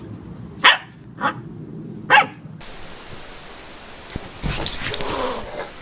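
A puppy barking three times in quick succession, short sharp barks. Then a thump and a scuffling noise.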